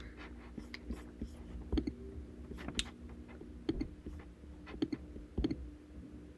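Faint, scattered short clicks, about one a second, over a steady low hum.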